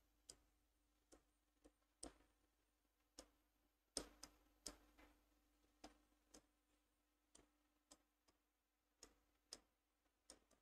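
Faint, sharp clicks of a marker pen tapping against a whiteboard as letters are written, irregular at about one or two a second, the loudest about four seconds in.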